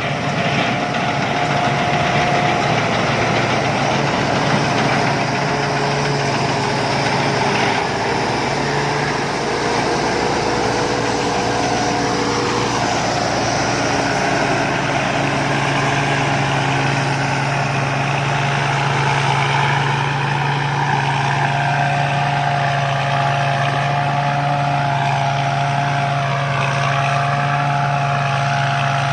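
Rice combine harvester's diesel engine running steadily, with a steady higher whine from the machine over its low drone.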